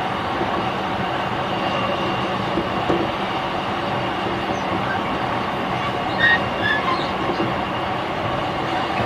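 JR East E531 series electric train running, heard inside the car: a steady rumble of wheels on rail, with a few short high squeaks about six seconds in.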